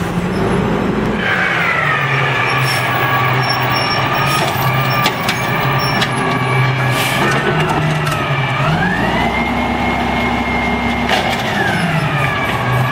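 Diesel engine of an automated side-loader garbage truck running with a whine above it that follows the engine speed. The engine drops to idle about a second in, then revs up about two-thirds through and holds for about two seconds, which is typical of the engine powering the hydraulic arm as it reaches for a cart, before settling back to idle near the end.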